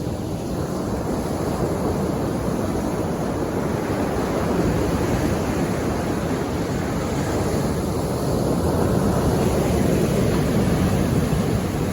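Ocean surf: waves washing in over the shore in a steady rush, swelling a little about halfway through and again near the end.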